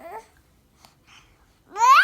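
Baby babbling: a short coo at the start, then a loud high squeal that rises sharply in pitch near the end.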